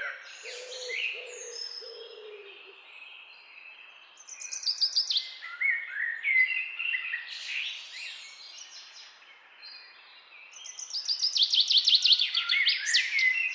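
Several birds calling and singing: low repeated notes for the first few seconds, then high chirps and fast trills of falling notes, loudest near the end.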